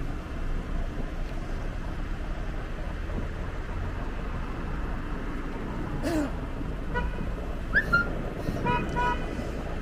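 Steady street-traffic rumble, with a few short high-pitched toots in the last three seconds, like distant car horns.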